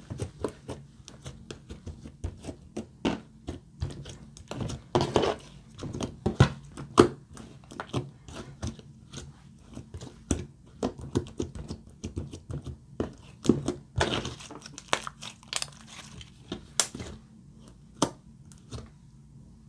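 Glossy slime being kneaded and stretched by hand, giving a dense, irregular run of sharp clicks and pops, a few a second, thinning out near the end.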